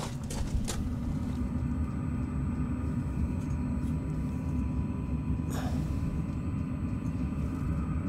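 Chinese diesel heater's exhaust running through a silencer and a long flexible stainless extension pipe: a steady low rumble. A brief rustle comes about five and a half seconds in.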